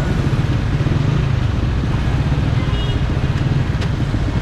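Motorcycle engine running in slow city traffic, a steady low throb amid the surrounding street traffic.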